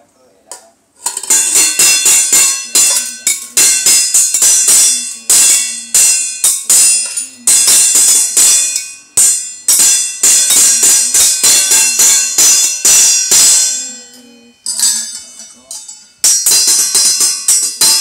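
Stainless steel kitchen pots and lids being banged on rapidly, several ringing metallic clangs a second, stopping briefly twice near the end.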